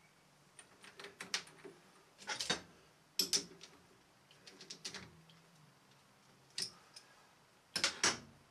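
Irregular clusters of small clicks and taps as an amber LED indicator body is handled and screwed by hand onto a threaded metal tube held in a lathe chuck. The loudest clicks come about two and a half seconds in, a little after three seconds, and near the end.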